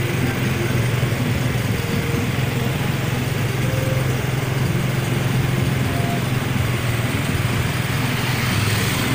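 A small vehicle engine running steadily on the move, a low even drone over wind and road noise.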